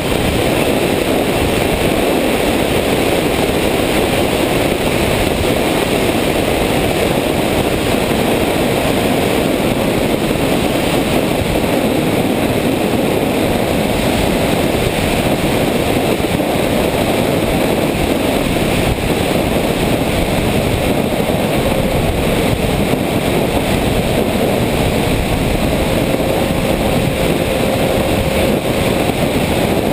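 Sound from a camera on board an RC airplane in flight: a loud, steady rush of wind over the microphone mixed with the plane's motor and propeller running. A faint steady tone comes in near the end.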